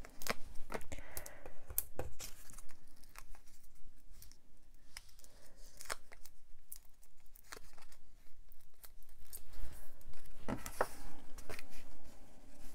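Foam adhesive dots being peeled off a clear plastic backing sheet and stuck onto a card-stock label, with scattered crinkles, small tearing sounds and ticks. Louder paper rustles come about ten seconds in, as the label is handled against the card.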